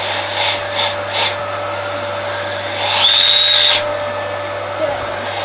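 Vacuum cleaner motor running steadily with a constant hum, a few short hissy bursts of suction in the first second and a half, and a high-pitched whistle lasting under a second about three seconds in.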